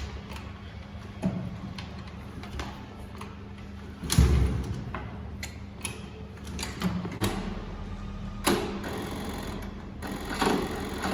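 Scooter being worked at by hand: a heavy thump about four seconds in, with lighter knocks and clicks before and after, over a steady low hum; the engine does not catch.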